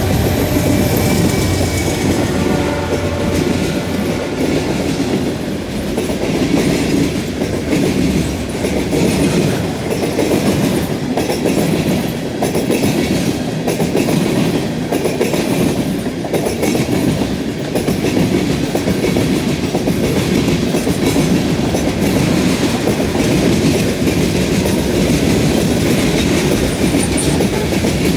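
Freight train rolling past close by: steady heavy rumble of wheels with a continual clickety-clack over rail joints and the junction switch. In the first couple of seconds a few steady tones from the head end fade out under the wheel noise.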